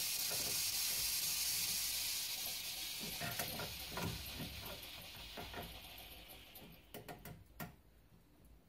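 Steam hissing out of a leaking steam-radiator vent valve, fading away over several seconds as the radiator's supply valve is shut off, then a few light clicks near the end. The hiss is the sign of a defective vent valve whose needle stays open and lets steam keep spitting out.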